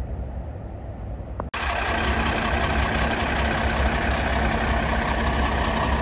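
A low rumble, then, after a cut about a second and a half in, the diesel engine of an ERF EC8 fire engine idling steadily.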